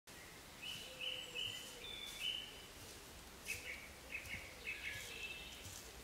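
Woodland songbirds singing in the spring chorus: short, quick phrases of high notes in two bursts, about a second apart, over a steady faint background hiss.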